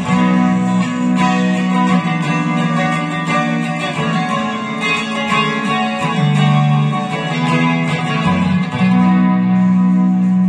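Solid-body electric guitar played with a clean tone: picked notes and chords ringing, with sustained low notes underneath that change every second or two.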